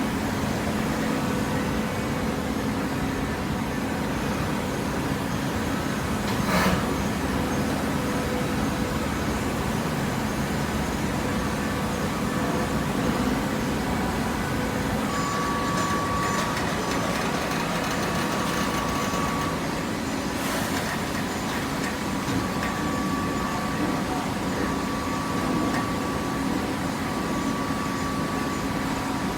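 Hydraulic waste-paper baler running with a steady machine hum and a thin whine that comes and goes. Two short sharp knocks sound, about a quarter of the way in and again about two-thirds of the way in.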